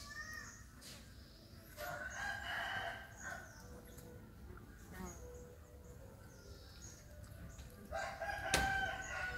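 An animal calling twice, one long call about two seconds in and another near the end, each lasting about a second and a half, with faint high chirps in between.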